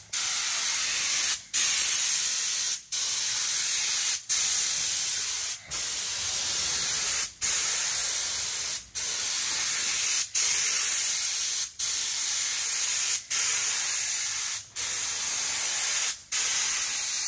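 Compressed-air gravity-feed paint spray gun hissing as it sprays paint. The trigger is let go briefly about every second and a half between passes.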